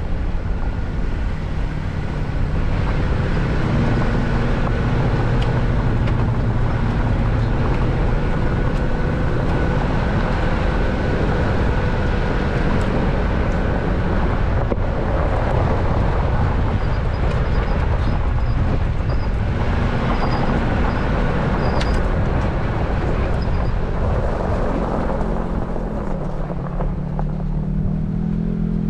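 An off-road 4x4's engine running steadily while its tyres roll over a dirt and gravel trail, heard from a hood-mounted camera. Near the end the engine note shifts in pitch.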